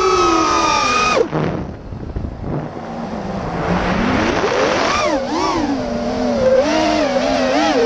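A QAV210 racing quadcopter's DYS 2205 brushless motors on 5-inch props whining. The pitch holds high, drops away sharply about a second in as the throttle is cut, then climbs back and wavers up and down with the throttle.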